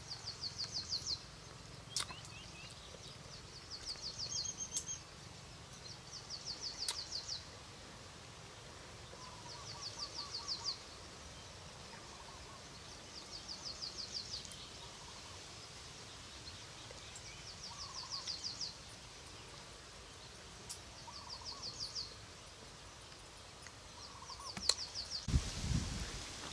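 A bird repeating a short, rapid, high-pitched trill about every two to three seconds, with fainter lower calls in between. A few sharp clicks, and a rustle near the end.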